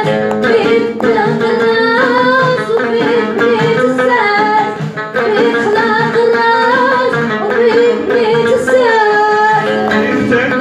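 A man singing a Moroccan folk song in Darija, accompanied by a plucked long-necked lute and a hand-struck frame drum.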